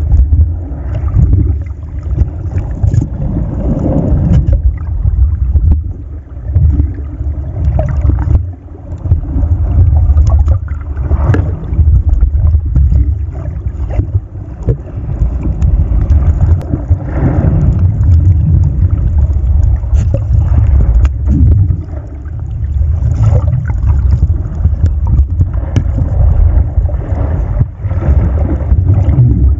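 Muffled low rumble of water moving over an underwater camera's microphone, rising and falling, with a gurgling swish now and then as the camera is moved through the water.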